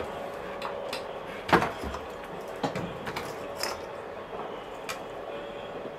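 Scattered light clicks and knocks, the loudest about a second and a half in, over a faint steady hum: a phone circuit board and its test leads being handled on a repair bench while the board is connected to a DC power supply.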